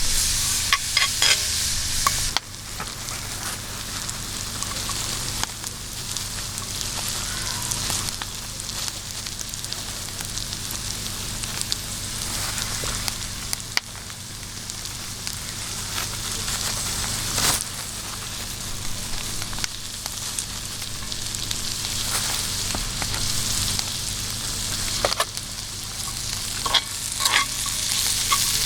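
Food frying in hot oil with a steady sizzle, and now and then sharp clicks and taps of a utensil against the pan.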